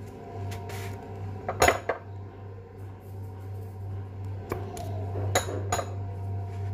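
Kitchen utensils and dishes clinking and knocking on the counter while food is wrapped: a quick cluster of sharp clinks about a second and a half in, the loudest part, then three more single knocks later on. A steady low hum runs underneath.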